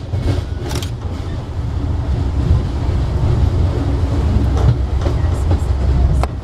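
Train wheels rolling on steel rail through an interlocking's switches and crossings: a steady low rumble with a few sharp clicks as wheels strike rail joints and frogs.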